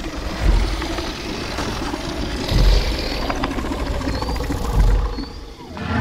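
Sound-effect Tyrannosaurus rex growling: a rough, rumbling roar with deep low booms about every two seconds, dipping briefly just before the end.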